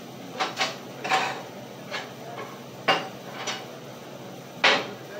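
A string of about seven sharp metal knocks and clanks at irregular intervals, each with a short ring, from steel being handled and struck on a steel fabrication table. The loudest clank comes near the end.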